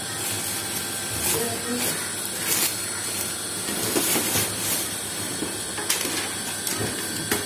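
Shoe box and packaging being handled, giving a few sharp clicks and rustles over a steady background hiss.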